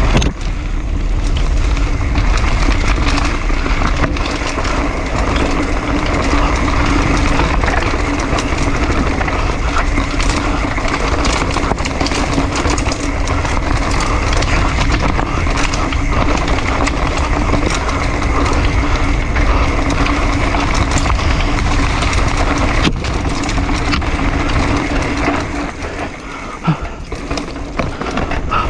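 Mountain bike descending a dirt singletrack at race pace: a steady rushing rumble of tyres on the trail, with frequent knocks and rattles from the bike over bumps and roots. It eases off a little near the end.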